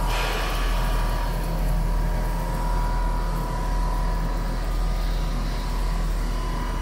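Computerized flat quilting machine running: a steady low hum with a thin, steady whine over it, without pauses.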